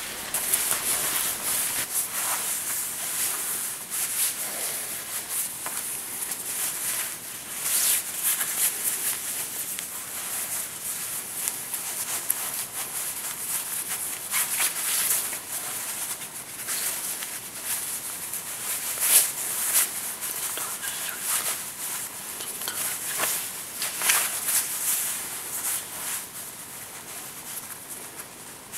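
Necktie fabric swishing and rubbing against the shirt collar and the hands as a tie is tied, very close to the microphone: an uneven run of brushy rustles and swipes with no pause.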